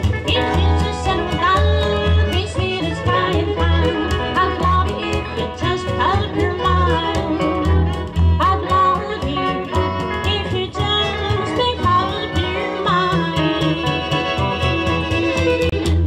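Live country band music: upright bass plucking a steady pulsing beat under an electric archtop guitar, with a melody line that wavers with vibrato above.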